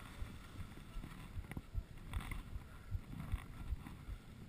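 Wind buffeting the microphone of a moving skier's action camera, with skis scraping over packed snow and a few sharp knocks.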